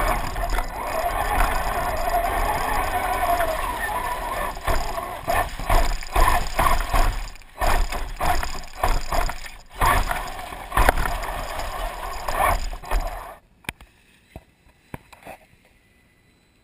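Traxxas Summit RC truck's electric motor and drivetrain whining as it drives over rough ground, steady at first, then in short bursts of throttle. Near the end it stops abruptly, leaving only a few faint clicks.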